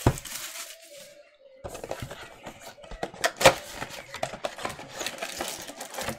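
Cardboard trading card mega box being opened and its foil-wrapped packs slid out by hand: rustling, crinkling handling noise, with one sharp click about three and a half seconds in.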